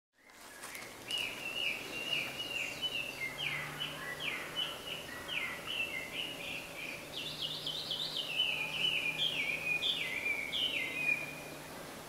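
A wild songbird singing a long, loud series of repeated whistled phrases, about two a second. The phrases shift to a higher version partway through, and the song stops just before the end.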